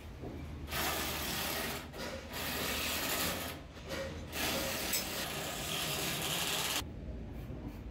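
Rasping scrapes on masonry in three long strokes, the last lasting about three seconds and stopping sharply near the end, over a low background rumble.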